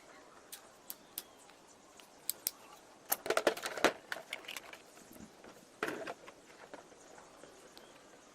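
A series of small, sharp clicks and rattles of hard parts being handled: a few single clicks, then a quick rattling cluster around the middle and another short one later.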